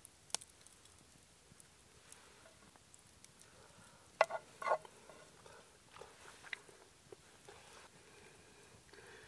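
Campfire crackling quietly: scattered sharp pops over a faint steady background, with a quick cluster of louder pops about four seconds in.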